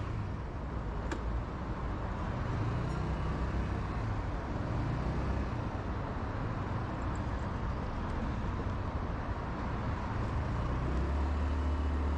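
Steady road and traffic noise with a low rumble, heard while riding a motor scooter through city traffic.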